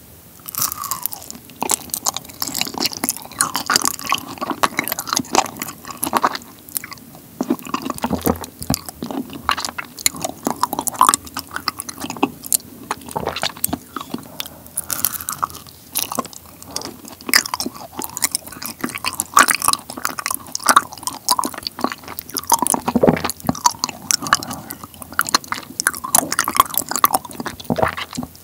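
Close-miked chewing of honeycomb on warm kirimochi rice cake: sticky, wet mouth sounds dense with small crisp clicks, after a bite at the start.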